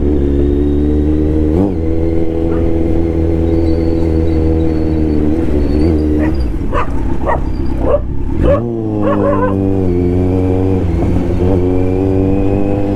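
Kawasaki Z900 inline-four engine running steadily under way. The revs drop and climb again about two-thirds of the way through. A dog barks several times over the engine, mostly in the middle, as it chases the motorcycle.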